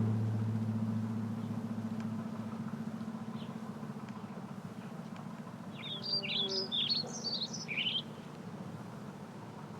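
Outdoor ambience with a faint steady low hum, and a songbird giving a quick run of high chirps about six seconds in, lasting around two seconds.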